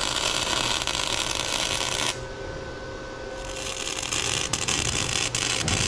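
MIG welding arc crackling and sizzling as a muffler is welded onto a steel exhaust header. The crackle cuts off abruptly about two seconds in and starts again about a second later.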